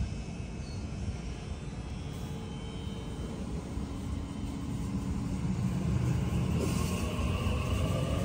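Sydney Trains double-deck electric train pulling away along the platform: a low rumble builds from about halfway through, and a rising electric motor whine joins it near the end as the train gathers speed.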